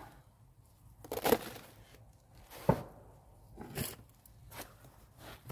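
Short gritty crunches and scrapes of a stone and lime mortar being handled in a wall void by gloved hands: four or so separate scrapes, the loudest about a second in and near the middle.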